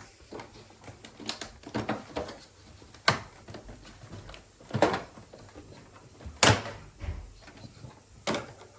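Plastic clicks and knocks from a Daikin air conditioner's removable parts being handled and unclipped: four sharp loud knocks a second and a half to two seconds apart, with lighter clicks between them.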